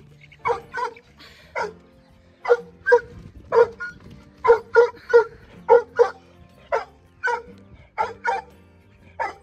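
A dog barking over and over, about two short barks a second, some in quick pairs.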